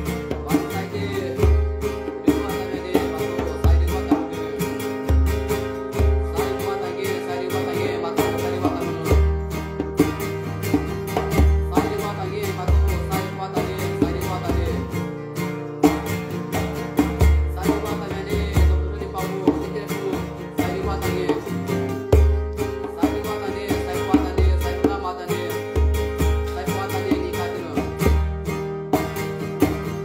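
Chant music with a plucked-string accompaniment, held sung or played tones over a steady low beat about once a second.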